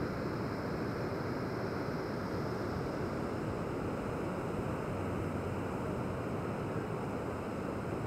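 Steady rushing of river water pouring over a low dam and tumbling through rocky rapids, an even, unbroken wash of noise.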